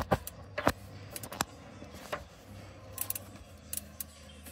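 Irregular sharp clicks and light knocks of hands working among rubber hoses and spark plug wires in an engine bay.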